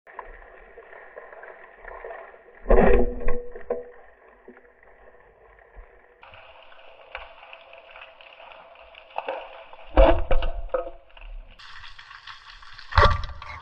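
Band-powered speargun firing underwater, three sharp hits, heard through a camera housing over a steady muffled underwater hiss.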